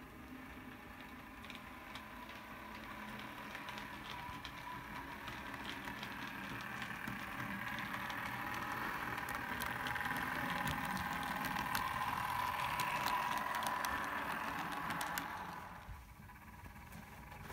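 Model railway train, a green model diesel multiple unit, running on the track: a motor whine with fast small clicks of the wheels on the rails, growing louder as it comes close, then dropping off suddenly about three-quarters of the way in.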